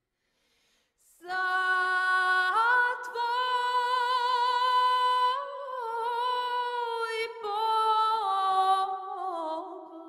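A woman's solo voice singing slow, long-held notes without accompaniment, coming in about a second in after near silence. The melody steps up early on, wavers with a light vibrato, and falls lower near the end.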